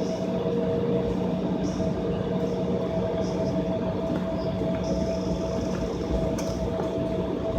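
Jet airliner's engines running, heard inside the passenger cabin as a steady rumble and roar with a few steady hums.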